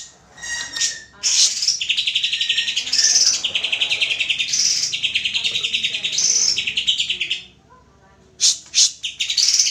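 Greater green leafbird (cucak ijo) singing a fast, chattering, buzzy song laced with higher whistled notes. The song breaks off briefly about three-quarters of the way through, then resumes with a few sharp notes.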